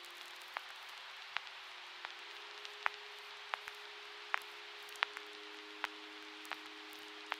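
Ambient music built on record-player surface noise: a steady hiss with scattered sharp clicks and pops, over a faint sustained drone that shifts to a lower note about five seconds in.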